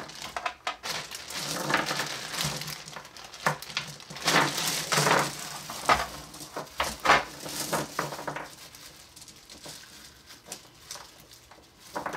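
Glass marbles clicking and rattling as they are picked out of a plastic bag and set into the recesses of a plastic game tray, with the bag crinkling. The handling is busiest for the first eight seconds or so, then dies down to a few small clicks.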